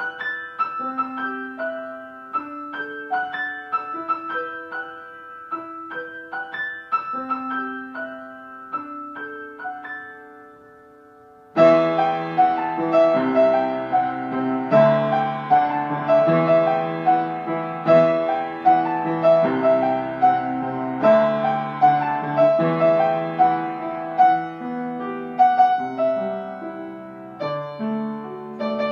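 Calm piano music: a sparse melody of single notes, then fuller and louder chords over a bass line from about twelve seconds in.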